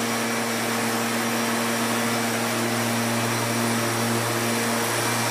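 Leaf blower mounted on a plywood hovercraft, running steadily to blow lift air under the nylon skirt: a constant rushing of air over a steady motor hum.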